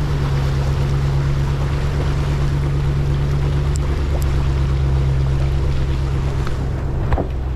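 Land Rover Discovery 2's engine running with a steady low hum while the truck drives through a creek, water washing around it. A short knock just before the end.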